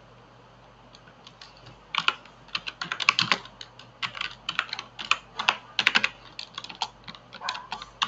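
Typing on a computer keyboard: quiet for about two seconds, then a run of quick, irregular key clicks.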